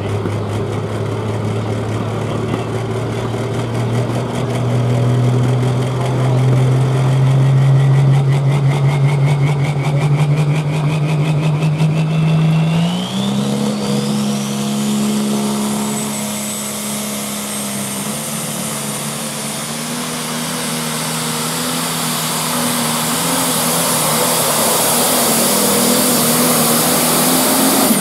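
The turbocharged engine of a John Deere super/pro stock pulling tractor runs flat out under load during a pull. Its note climbs in steps as the tractor gains speed, and a high turbo whistle rises steeply about halfway through and stays high to the end.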